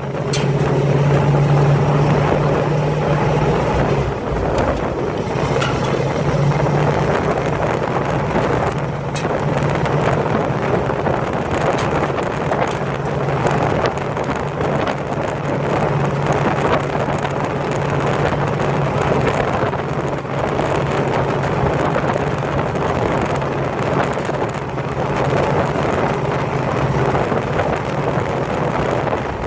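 1948 Pontiac's engine running steadily with an even low hum, with wind noise on the microphone.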